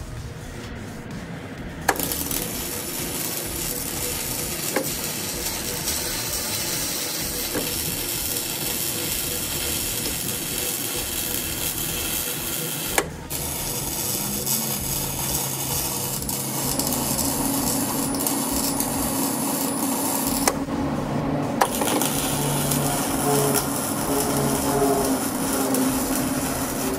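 Hobart Ironman 230 MIG welder welding: a steady crackling hiss of the arc as wire feeds through the drive rolls. It comes in three runs, starting with a click about two seconds in, breaking off briefly around thirteen and twenty seconds and starting again each time. Faint music comes in under it in the second half.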